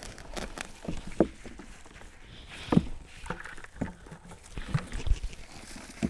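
Gloved hands rooting through dry potting soil and potato vines in a plastic tub, with scattered light knocks, about one a second, as red potatoes are picked out and tossed, and short wordless sounds from a toddler.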